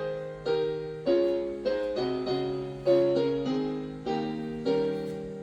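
Piano playing a slow hymn accompaniment: full chords struck one after another, about one every half second to second, each ringing and fading before the next.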